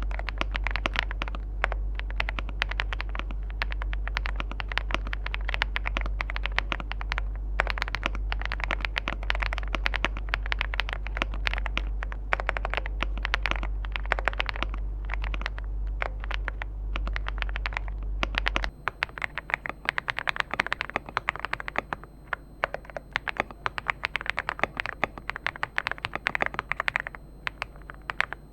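Fast, continuous typing on an Aula F99 Pro mechanical keyboard fitted with PBT keycaps: a dense run of key clacks. About two-thirds in, a low hum under the typing stops abruptly and the background changes, as at a switch to another recording.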